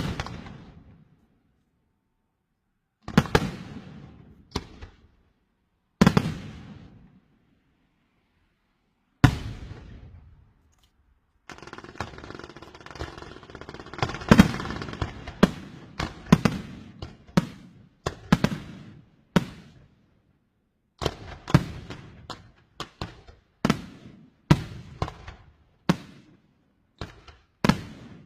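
Fireworks exploding in loud, sharp bangs, each trailing off in an echo. At first single bangs come a few seconds apart. From a little before the middle, a faster string of bangs sounds over a steady crackling hiss.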